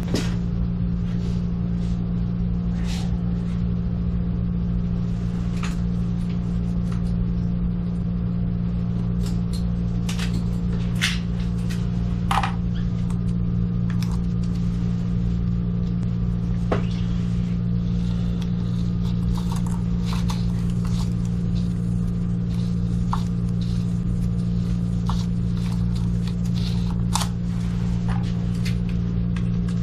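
A steady low electric hum, as from a running motor, holds at one pitch throughout, with scattered light clicks and taps over it.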